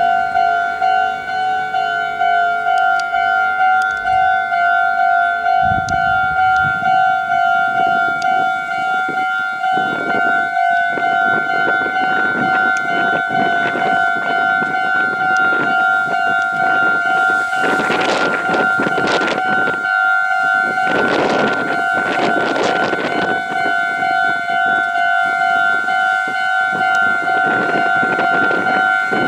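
Japanese railway level-crossing alarm ringing: a steady two-tone electronic bell repeating in even pulses. From about a quarter of the way in, the rushing rail noise of a passing electric train joins it, swelling twice in the second half.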